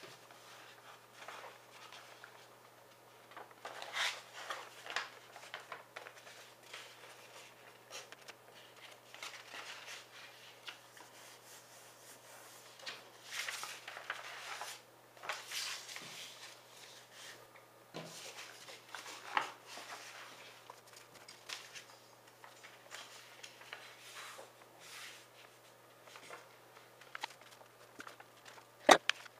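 A sheet of A4 paper being handled, turned and creased by hand, rustling and crinkling in irregular bursts, with a sharp tap near the end.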